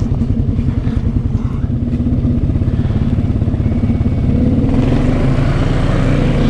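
Can-Am Outlander 700 ATV engine running at low revs with a pulsing beat, then revving harder and louder from about four and a half seconds in.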